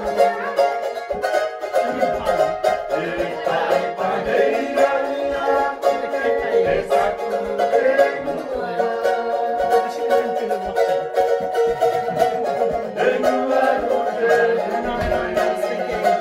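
Several ukuleles strummed together by a group, playing a lively tune in a steady, quick strumming rhythm.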